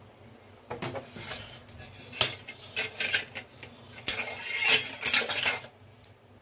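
Stainless steel kitchenware clattering and clinking as a steel bowl is handled and set down on a gas stove top: a run of knocks and scrapes from about a second in, stopping shortly before the end.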